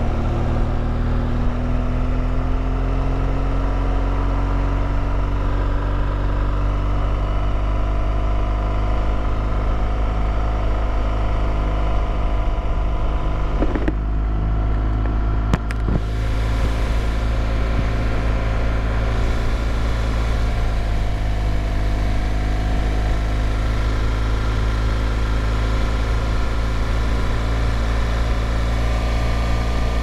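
Motorcycle engine running steadily under way, its pitch rising slightly over the first few seconds, with a brief dip and a couple of clicks about fourteen to sixteen seconds in.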